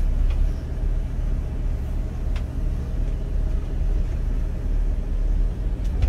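Steady low rumble of a 40-foot Fleetwood Revolution diesel motorcoach rolling slowly forward, its engine and drivetrain heard from inside the cab.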